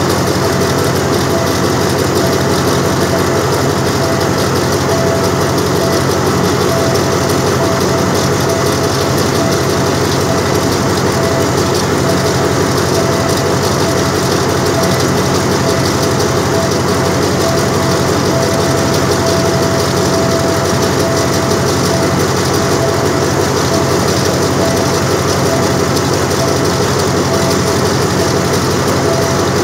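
Diesel locomotive engine idling steadily, a low engine note with a constant whine above it.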